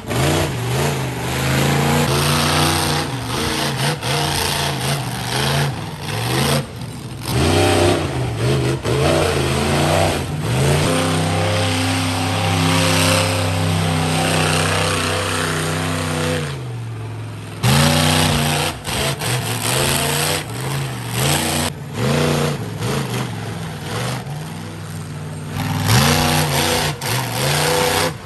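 Monster truck's engine revving hard, its pitch climbing and falling again and again with the throttle, with a longer steady high-rev stretch that winds down about two-thirds of the way through, and a few short breaks.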